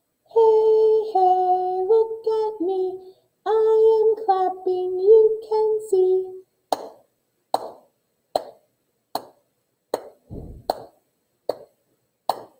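A woman sings two short phrases of a children's action song unaccompanied, then claps her hands in a steady beat, about eight claps a little under a second apart.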